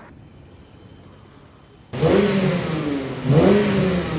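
A car engine revving twice, starting suddenly about halfway through after a quiet stretch.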